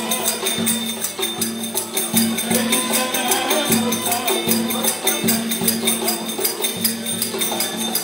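Turkish folk dance music on a davul and a bowed fiddle. The big double-headed drum keeps a steady beat with deep strokes of the heavy beater and sharp clicks of the thin switch, under a quick fiddle melody.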